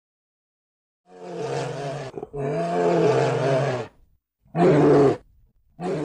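Bear growling: four rough, low growls in a row after a second of silence, the second the longest and the third the loudest.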